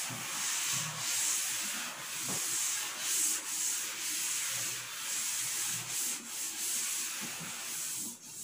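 Chalkboard eraser wiped back and forth across a blackboard, rubbing off chalk writing: a scrubbing hiss in repeated strokes that stops shortly before the end.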